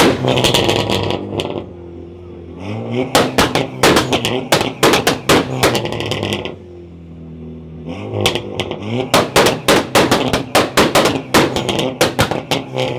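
Tuned sports car engine revved up twice, each time held at steady revs while the exhaust fires a rapid train of sharp bangs and cracks, several a second, with a brief settle to idle in between.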